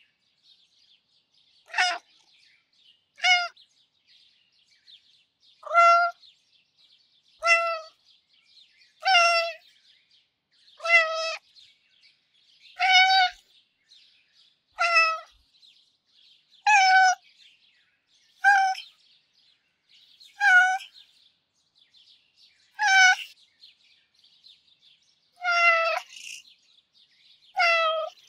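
A Russian blue cat meowing gently and sweetly: two quick meows near the start, then a steady run of ten meows about two seconds apart, and two more near the end, about fifteen separate meows in all.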